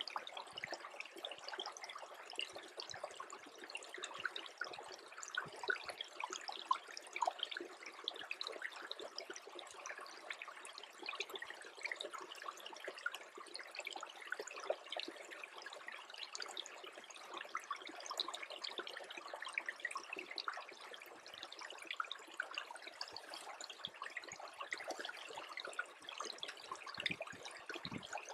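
Small stream that is freezing over, trickling with a continuous stream of tiny irregular plinks, drips and gurgles.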